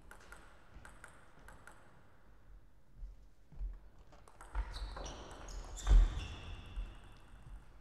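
Table tennis rally: a ball clicking off paddles and the table, each hit with a short high ping. There are a few light taps in the first second or so, then a quick run of hits from about three seconds in, the loudest about six seconds in, with low thumps underneath.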